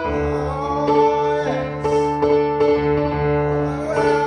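Piano-led music playing sustained chords, an instrumental stretch of the song with no vocals.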